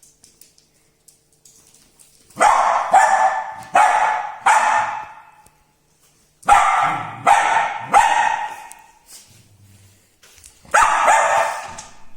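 West Highland White Terrier barking in three runs of several sharp barks each, starting about two seconds in.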